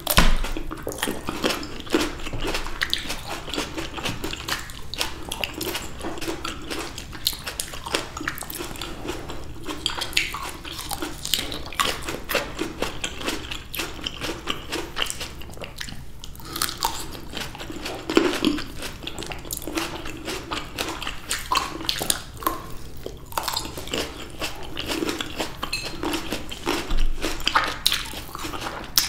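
Red grapes being bitten off the bunch and chewed close to the microphone: a dense, irregular run of crisp pops and wet mouth sounds.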